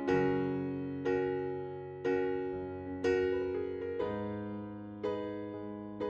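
Background music of piano chords, a new chord struck about once a second and left to fade.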